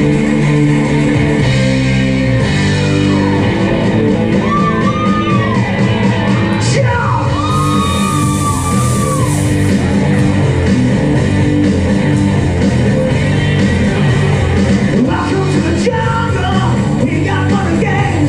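Loud rock music with guitar playing over a PA. About eight seconds in, stage CO2 jets hiss for a couple of seconds, and near the end a singer comes in on a microphone.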